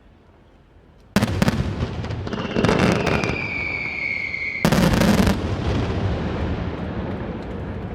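Fireworks display: after a second of quiet, a sudden volley of loud bangs and crackle. A whistling tone falls slightly in pitch, then another loud burst comes near five seconds in, and the crackle and rumble slowly fade.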